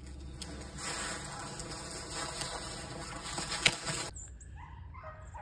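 Dry brush and briars rustling and crackling for a few seconds, with one sharp snap near the end. It cuts off suddenly, and rabbit hounds start baying on a rabbit.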